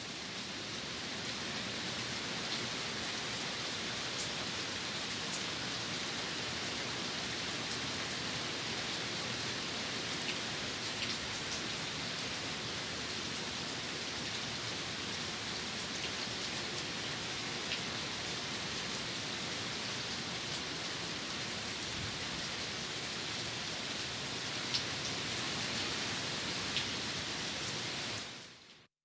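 Steady rainfall: an even hiss of rain with scattered individual drops ticking more sharply. It fades out quickly near the end.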